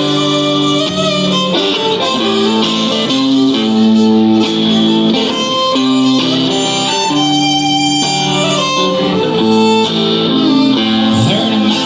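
Live country music: an instrumental introduction with a melody lead played over guitar, held notes changing every second or so.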